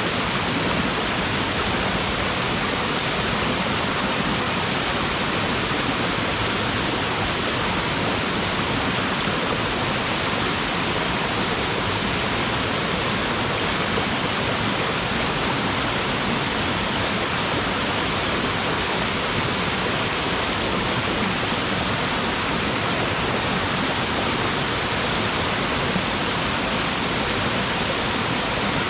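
Waterfall pouring steadily: an even, unbroken rush of falling water with no change in level.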